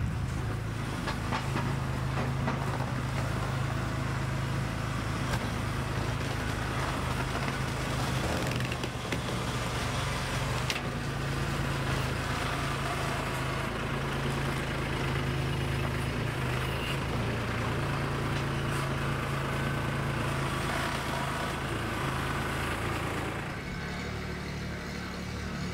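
Kubota B2261 compact tractor's three-cylinder diesel engine running steadily as the tractor drives about. The sound eases off a little near the end.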